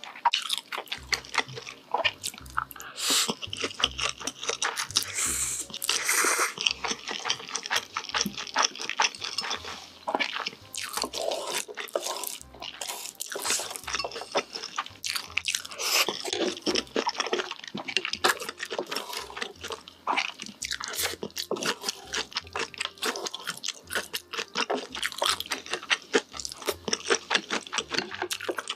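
Close-miked ASMR eating: wet chewing and slurping of instant noodles, with a dense run of small mouth clicks and crackles.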